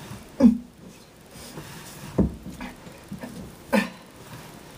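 A man grunting with effort three times, short sounds that drop in pitch, while straining to work a heavy wire into place; the second comes with a knock.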